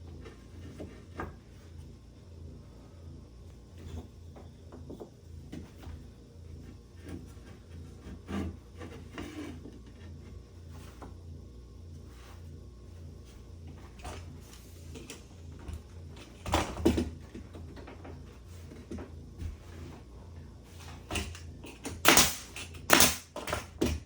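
Irregular knocks, clicks and clatters of objects being handled by hand, over a low steady hum, with a louder bang about two-thirds through and two more near the end.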